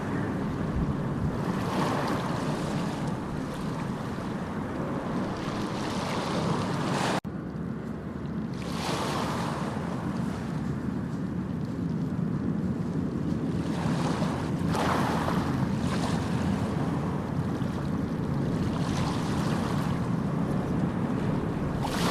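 Sea waves washing in: a steady rush of surf that swells and falls back every few seconds. About seven seconds in, the sound drops out suddenly for an instant and then carries on.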